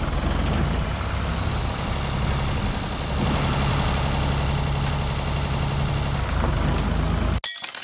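Ford 4000 diesel tractor engine running steadily, rising a little in pitch and level about three seconds in. The sound cuts off abruptly near the end.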